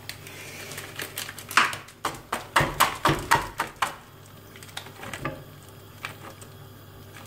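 Raw meatballs being tipped one by one from a plastic tray into a frying pan of thick cream-cheese sauce: a quick run of soft knocks and clicks from about one and a half to four seconds in, then a few more, spaced out.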